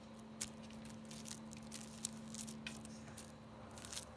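Light, irregular taps and rustles as a kitten bats and grabs at a dangling cord with its paws, over a faint steady hum.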